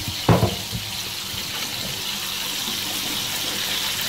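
Meat patties frying in a pan with a steady sizzle. Two short knocks come early, the first about a third of a second in.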